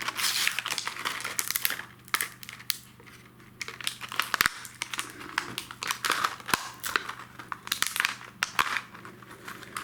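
Packaging being handled and pulled open by hand, with irregular crinkling and crackling.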